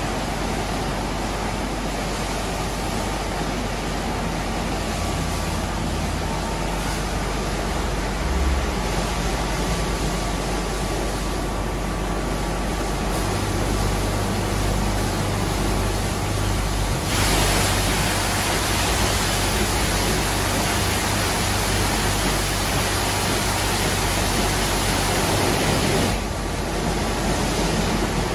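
WashTec gantry car wash running over a car: a steady rush of water spray and spinning brushes over a low motor hum. From a little past halfway the rush gets louder and brighter for about nine seconds, then eases again.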